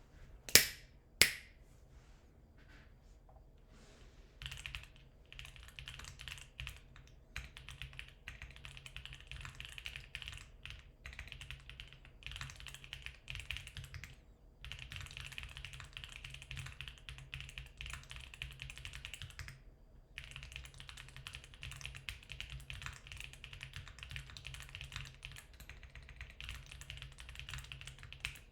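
Two sharp clicks within the first second and a half, then fast typing on a Geon Works F1-8K mechanical keyboard from about four seconds in, with two brief pauses. The keyboard has factory-lubed Geon HG Black linear switches, a 1 mm aluminium plate, and foam in both the plate and the case.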